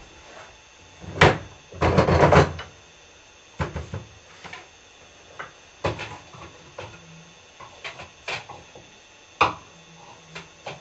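Separate knocks and clatters of a pot and kitchenware being handled and set down on a stove. The loudest knock comes about a second in, followed by a short rattling clatter, then scattered lighter knocks.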